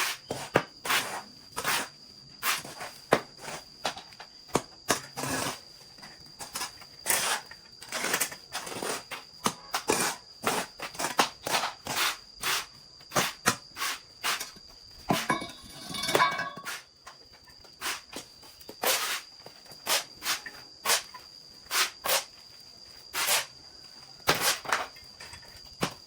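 Irregular sharp clicks and knocks, about one or two a second, over a steady high-pitched insect drone.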